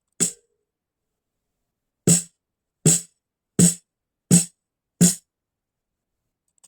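Snare drum struck six times: one hit, a pause of almost two seconds, then five evenly spaced hits about 0.7 s apart. Each hit is short and dies away quickly, with the wire rattle bright on top.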